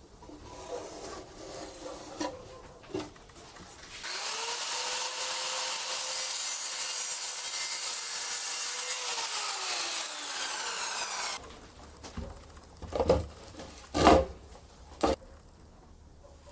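Small angle grinder spinning up about four seconds in, running steadily, then switched off and winding down, its whine falling until it stops. Scraping comes before it, and several knocks follow near the end, the loudest about fourteen seconds in.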